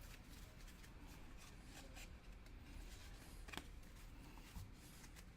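Faint handling of trading cards: cards sliding and flicking against each other as a stack is worked through, with one sharper click about three and a half seconds in.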